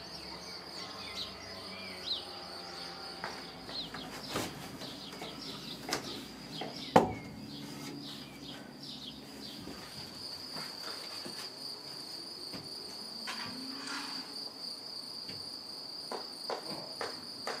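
Outdoor ambience: a steady high insect trill, with scattered bird chirps and a few sharp knocks, the loudest about seven seconds in.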